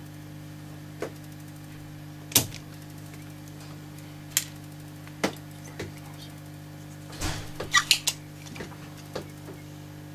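Spring-loaded solder sucker (desoldering pump) clearing molten solder from plated through-holes: sharp snaps as the plunger is released, about eight in all, the loudest a couple of seconds in and a quick run of clicks near the end as it is re-cocked and fired again. A steady low hum runs underneath.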